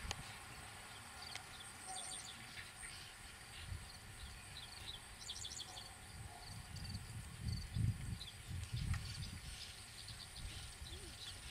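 Faint rural outdoor background with scattered clusters of short, high chirps and a few low rumbling swells, the strongest about eight seconds in.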